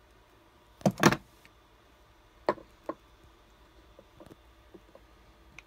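Hand-held network-cable crimping tool squeezed shut on a camera cable: a loud double clack about a second in, then two lighter clicks a little later and faint ticks of handling.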